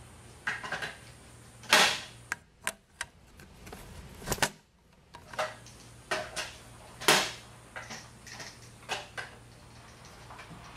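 Shower commode chair frame clattering against its hard travel case as it is handled and lifted out: an irregular string of sharp clicks and knocks, two of them louder, over a low steady hum.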